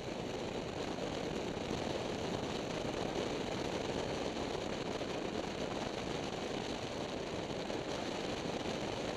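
Triumph Tiger motorcycle riding at steady road speed: the engine running under a steady rush of wind over the microphone, with no change in pitch or level.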